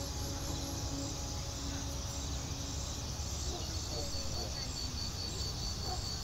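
Soft ambient background music over a steady hiss, with a faint high tone pulsing evenly through it.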